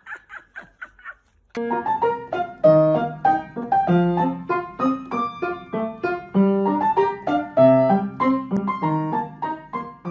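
Piano music: a steady melody of single notes over lower chords, starting about one and a half seconds in. Before it comes a quick run of short, rapid sounds that fades out within the first second.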